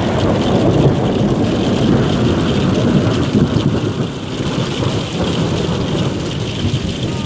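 Long rolling thunder rumble that swells in right at the start, holds strong for about four seconds and then eases a little, over steady rain.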